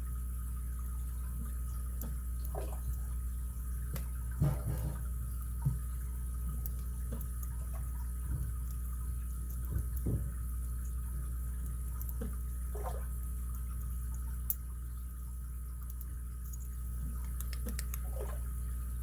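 Lock pick and tension wrench working inside an ABUS 83CS/55 padlock: scattered faint, short metallic clicks and scrapes of the pick on the pins, with a small cluster about four seconds in and a sharper single click near the end, over a steady low hum.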